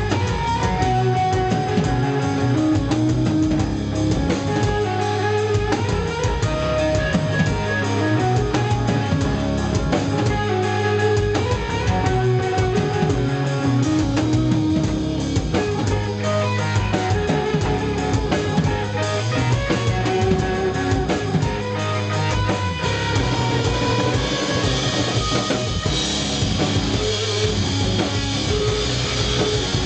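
Rock band playing live: electric guitar over a drum kit, loud and continuous, with the sound growing brighter near the end.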